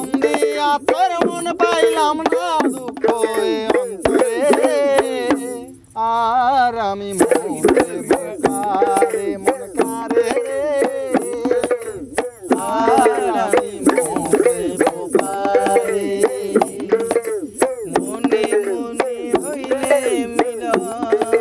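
Instrumental break in a Bengali folk song: hand drums keep a quick rhythm under a melodic line of notes that bend up and down, with no singing. The music drops out briefly about six seconds in, then picks up again.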